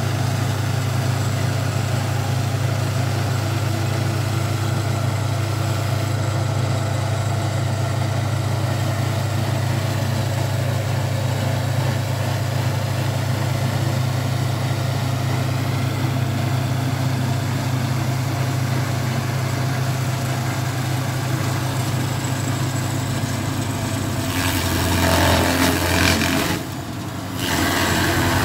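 Carlton tracked stump grinder's engine running at a steady pitch. In the last few seconds the sound turns louder and rougher as the cutting wheel works into a stump. It dips briefly, then picks up again.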